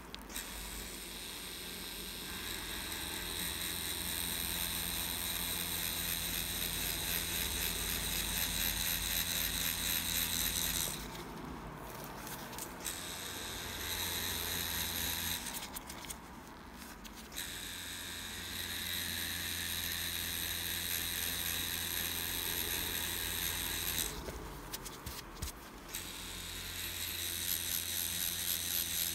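Tattoo machine with a cartridge needle buzzing steadily as it packs colour into skin. Its high whine drops out briefly three times, about a third of the way in, halfway, and near the end.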